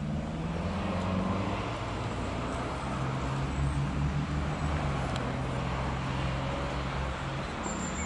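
Motor traffic noise: a low steady engine hum over road rumble that swells at the start and eases off near the end. A short high whistle-like note comes just before the end.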